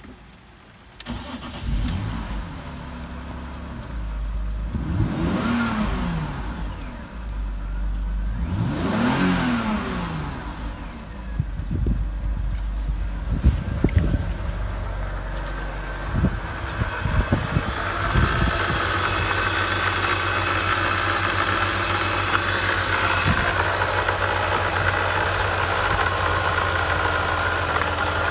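BMW M54B22 2.2-litre inline-six starting about a second in, revved up and back down twice, then idling steadily. A few knocks come in the middle as the camera is carried to the engine bay.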